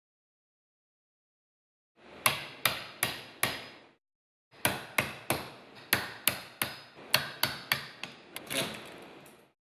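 Hammer striking the steel cap of a Stanley Dynagrip wood chisel, driving the blade into a softwood board. The sharp blows start about two seconds in, four at first, then after a short pause a steady run at about three a second.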